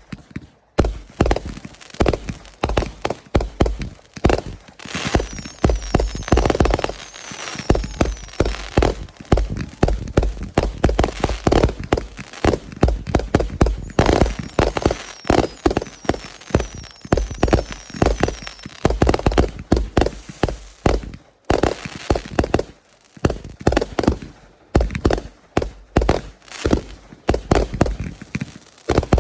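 Fireworks going off in a rapid, nearly continuous barrage of bangs and pops. Twice there is a run of short high whistles among them.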